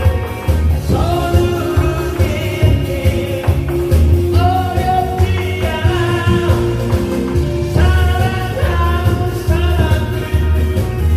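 A song sung over a loud backing track, with a heavy, steady bass beat under the voice.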